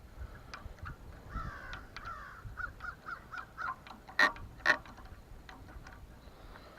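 Crow cawing: a soft run of quick calls, then two loud caws about four seconds in. A few faint clicks can be heard as well.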